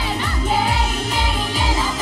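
Idol-pop song played loud over a stage sound system, with a steady beat about twice a second and a group of young women singing together.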